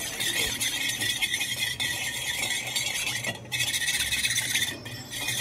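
Metal spoon stirring milk and ghee and scraping around an aluminium pot, over a steady high hiss that breaks off briefly twice.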